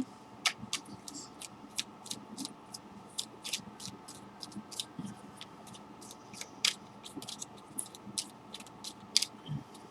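Faint, irregular light clicks and ticks, a few a second, over a quiet steady room background.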